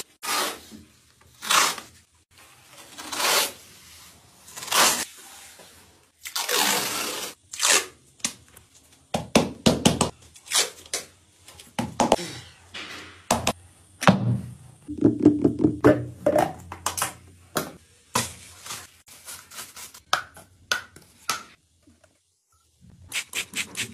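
Masking tape being ripped off the roll in several long tears over the first eight seconds or so, followed by a denser stretch of rustling, crinkling and knocking as plastic protective sheeting is handled and laid.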